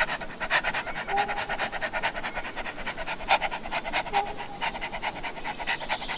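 A large dog panting, with quick, rhythmic breaths.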